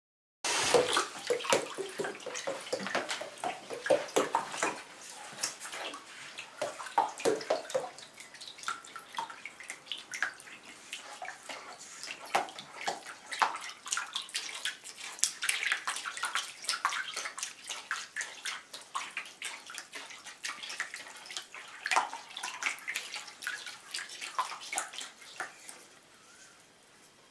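Shallow bath water splashing and lapping in a bathtub as a bearded dragon paddles through it, many small irregular splashes. It starts suddenly about half a second in, is busiest over the first eight seconds, then grows softer and fades near the end.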